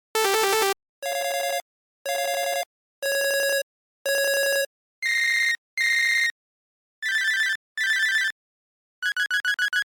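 Electronic phone ringtones sounding in short beeping bursts with silent gaps between them. The first burst warbles; four steady low beeps follow about once a second, then two higher beeps, two trilling beeps, and a rapid run of pulses near the end.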